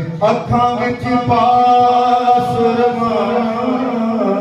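A man singing an Urdu naat unaccompanied into a microphone. About a second in, he holds one long note for nearly two seconds.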